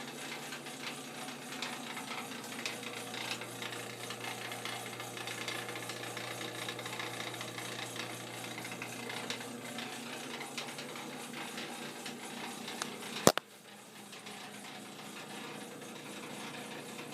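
Home furnace running with a steady low hum and a constant fast rattling buzz. About thirteen seconds in there is a single sharp click, after which the low hum stops and the sound is quieter.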